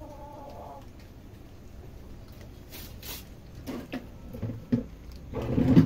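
Several puppies eating kibble from a plastic tray: irregular chewing, crunching and scrabbling, busier and louder in the last couple of seconds. A brief high call sounds at the very start.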